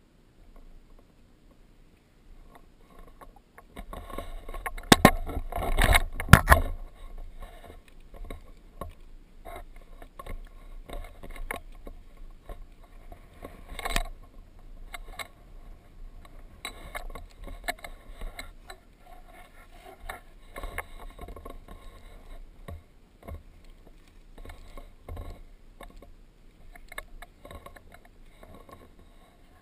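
Footsteps and scrambling on rock: irregular scuffs, knocks and clicks, with rubbing and rustling from the camera being handled. There is a dense cluster of louder knocks and rubbing from about four to seven seconds in, and a single sharp knock near the middle.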